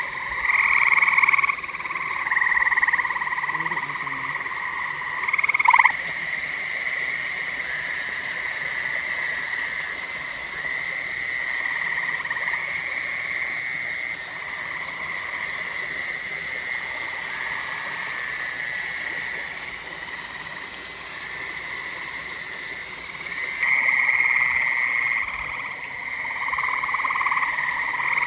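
A chorus of many frogs calling at once, their long overlapping calls forming a continuous din. It swells louder in the first few seconds and again about 24 seconds in.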